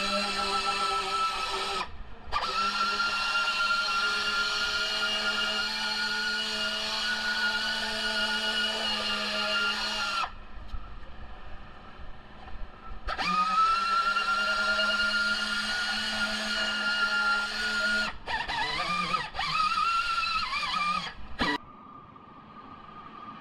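Rotary power tool running with a steady high whine. It stops about ten seconds in, spins up again with a rising whine a few seconds later, then runs in short uneven bursts before stopping near the end.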